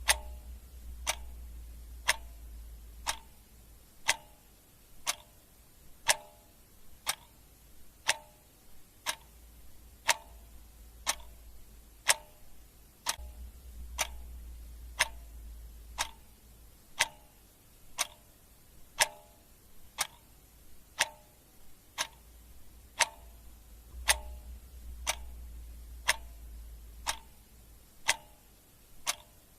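Clock ticking steadily, one sharp tick a second, as a timer's countdown sound. A low rumble swells and fades three times beneath it.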